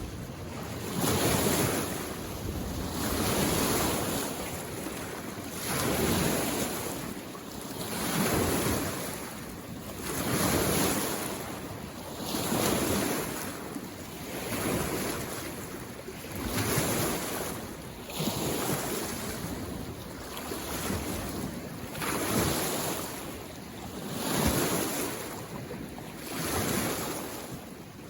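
Small mountain-lake waves coming in and washing ashore in a steady rhythm, one swell about every two seconds.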